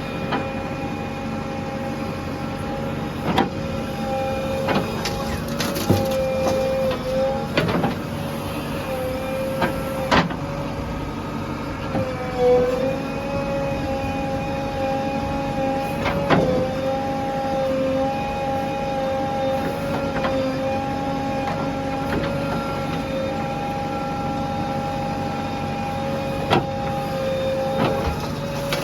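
Heavy earthmoving machinery running steadily, with a high whine that wavers slightly in pitch and scattered sharp knocks and clanks.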